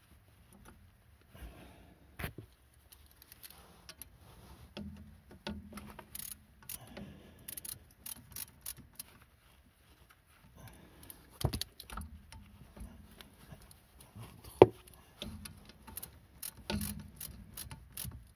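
Hand wrench and metal brake parts clinking, clicking and knocking irregularly during work on an Opel Astra G's rear drum brake and brake lines, with one sharp knock about two-thirds of the way through.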